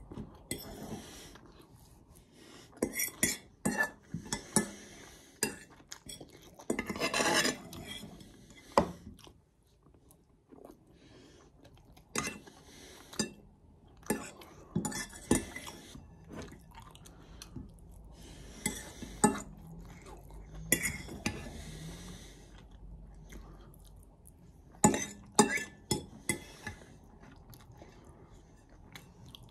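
Metal fork clinking and scraping against a bowl in irregular strikes, with chewing in between.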